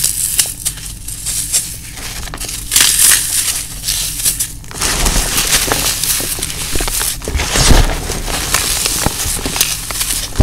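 Dry floral foam being crushed and crumbled in the hands: a continuous crisp, crunchy crackling made of many fine snaps, fuller and louder from about halfway through.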